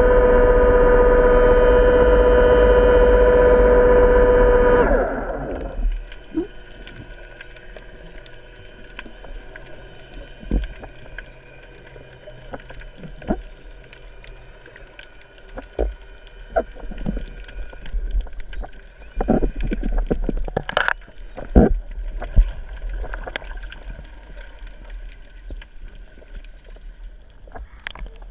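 Underwater sound: a loud steady hum of several fixed tones for about five seconds, which then dies away with a slight fall in pitch. After it comes quieter underwater ambience with scattered clicks and knocks.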